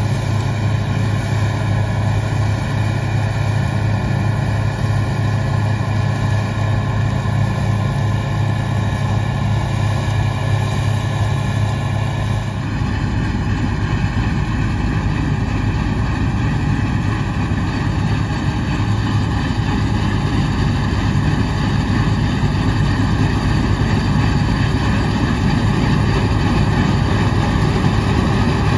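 Bizon Z056 Super combine harvester's SW-400 six-cylinder diesel engine running steadily under load while the machine harvests. About twelve seconds in, the sound changes abruptly to a noisier, less tonal mix of engine and machinery.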